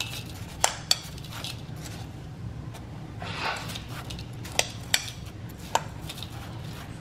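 Metal spoon scooping shaved ice into a glass bowl: several sharp clinks of the spoon against the bowls, with a soft scrape of ice a little past the middle.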